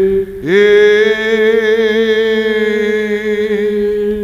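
Orthodox liturgical chant: a low drone note held steadily under a melody voice that slides up about half a second in and holds one long note, fading out near the end, closing the chanted hymn verse.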